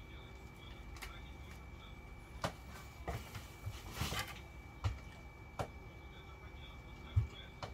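Handling noise as loose cables are worked around a pole: several light clicks and knocks, the loudest near the end, and a brief rustle about four seconds in.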